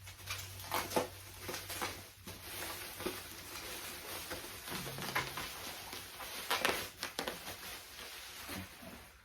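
Rustling and scattered clicks of toy packaging being handled and opened.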